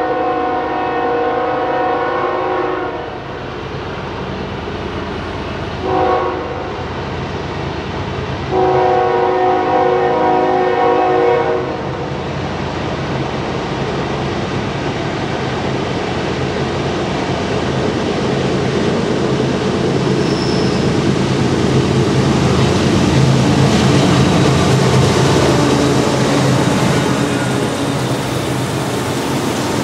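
Union Pacific diesel freight locomotives sounding their air horn in a long, short, long pattern, then working hard upgrade as they pass, a heavy engine rumble that grows louder and peaks a little over twenty seconds in.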